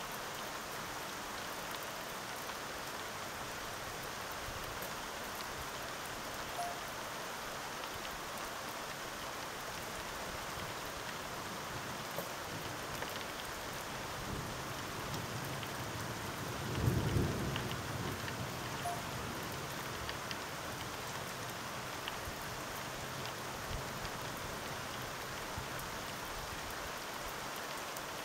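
Steady rain falling, with one low rumble of distant thunder a little past halfway that swells and fades over about two seconds.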